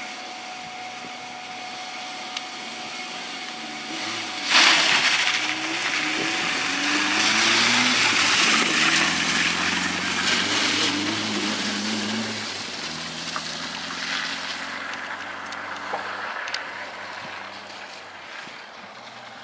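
Peugeot 205 rally car accelerating hard on a loose gravel and mud track, its engine rising in pitch through several gear changes. A sudden loud rush of tyre and gravel noise comes about four seconds in, the loudest moment. The engine fades in the second half as the car pulls away.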